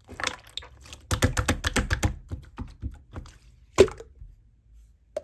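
Homemade slime being pressed and worked by hand, giving a rapid run of crackly clicks and small pops, with one loud click about four seconds in before it falls mostly quiet.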